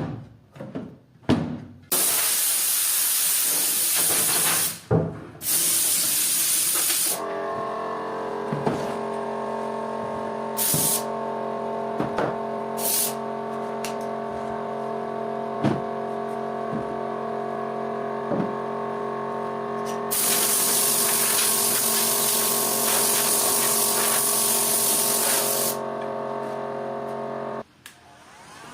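A few knocks, then loud spells of spraying hiss. A small motor then starts running steadily, with more hissing bursts over it, and cuts off abruptly near the end.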